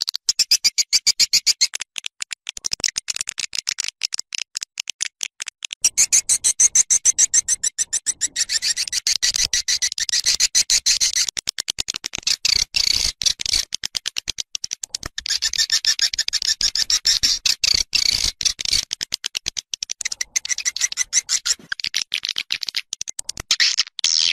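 Recorded calls of edible-nest swiftlets: a dense, fast run of high chattering chirps, many per second, broken by brief pauses. This is the outdoor lure sound that swiftlet houses play to draw swiftlets in to roost and nest.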